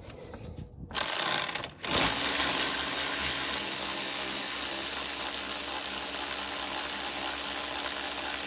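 Cordless electric ratchet running as it unscrews a bolt: a short run about a second in, then after a brief stop a long steady run that cuts off suddenly at the end.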